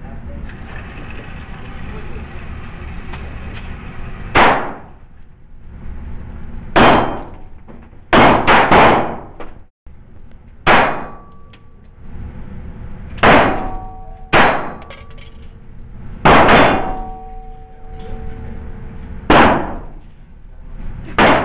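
Handgun shots fired one at a time on an indoor range, about eleven in all, mostly a second or more apart with three in quick succession near the middle. Each is a sharp crack with an echoing tail, and a faint ringing note hangs after several of them.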